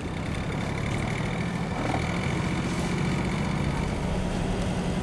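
40 hp Yanmar marine diesel engine being throttled up from idle to about 2,000 rpm. It gets louder over the first second, then runs steadily at the higher speed.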